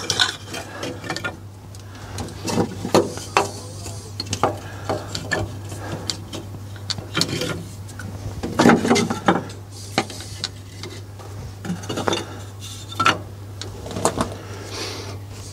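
Sticks of kindling wood being laid into a miniature steam locomotive's firebox, knocking and clattering irregularly against the wood and the metal of the firebox, with some scraping.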